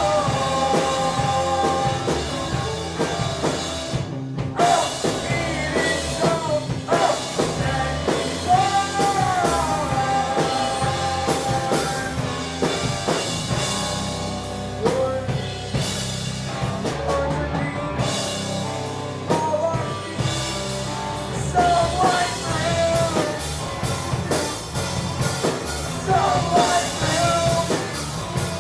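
Live indie rock band playing, with drum kit, bass and guitars, and a singer's voice carrying sung lines over it.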